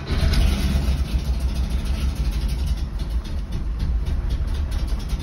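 1974 Porsche 914 2.0's air-cooled flat-four catching on a cold start and settling straight into a steady idle with no throttle applied.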